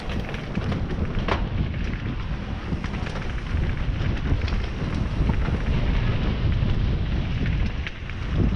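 Specialized Stumpjumper mountain bike descending a dirt trail at speed: a steady rumble of wind on the GoPro's microphone and tyres on dirt, with scattered clicks and rattles from the bike's chain and frame.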